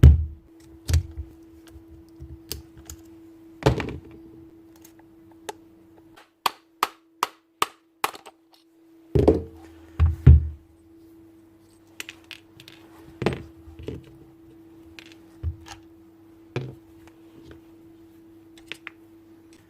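Irregular knocks, heavy thunks and sharp metallic clicks of hands working on a power drill's jammed bit holder, whose bit is held fast by its steel locking balls. A run of quick, evenly spaced clicks comes in the middle, and a steady low hum sits behind.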